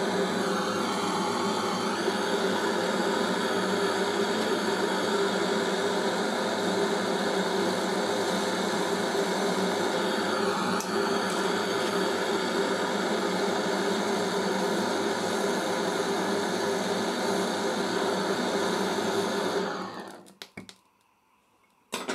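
Handheld butane cartridge torch burning with a steady hiss while heating a tungsten carbide tip for brazing with brass rod. The flame is shut off about 20 seconds in, followed by a few faint clicks and a short knock near the end.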